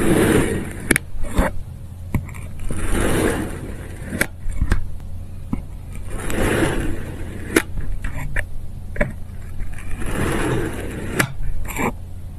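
Serrated knife slicing through a soft block. A scraping noise swells and fades about every three seconds, with scattered sharp clicks and a steady low hum underneath.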